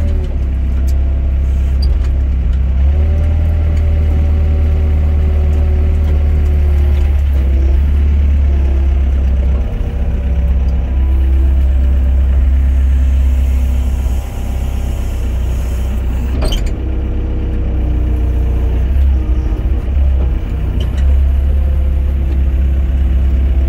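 Hydraulic excavator's diesel engine running steadily under load, heard from inside the cab, with a whine that rises and falls in pitch as the boom and bucket work. There is one sharp knock about sixteen seconds in.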